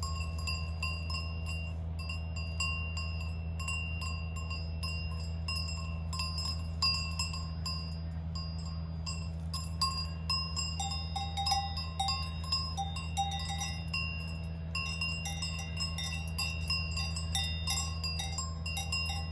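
Cowbells on grazing cows clanking irregularly as the animals move. A second, differently pitched bell joins about halfway through. A steady low hum runs underneath.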